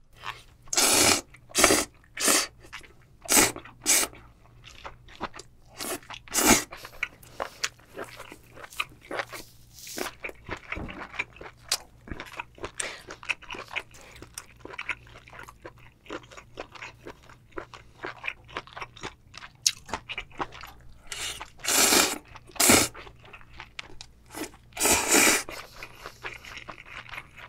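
Close-miked eating: spicy cold noodles slurped in loud strokes, several in the first few seconds and again around 22 and 25 seconds in. In between comes steady, wet chewing of the noodles with chewy horned turban shell meat.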